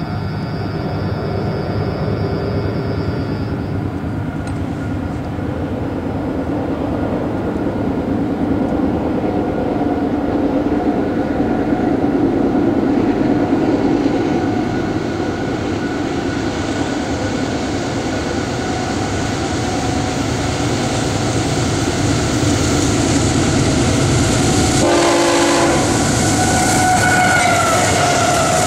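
An approaching CSX freight train led by diesel locomotives, its horn sounding over the engines' rumble and the wheel noise. The sound grows as it nears, and the horn's pitch drops as the lead locomotive passes close by near the end.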